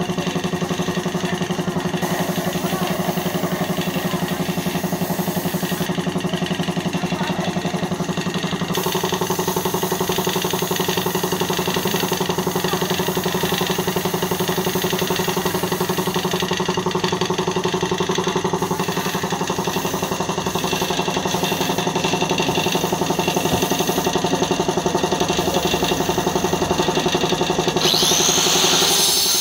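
Air compressor for a spray-painting job, running with a steady motor drone. A brighter hiss of air rises near the end.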